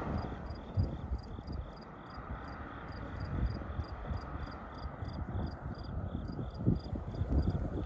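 Insects chirping in a steady, even rhythm of about three short high chirps a second, over low gusts of wind on the microphone. A passing car's road noise fades away in the first second or two.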